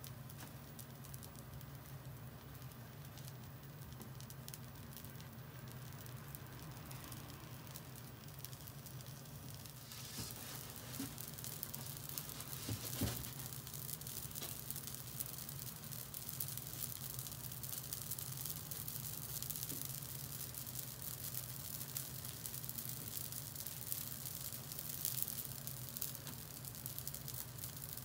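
Yaki manjū buns on a grill, the miso glaze sizzling and crackling over a steady low hum. The crackle grows denser about ten seconds in, with a single knock a few seconds later.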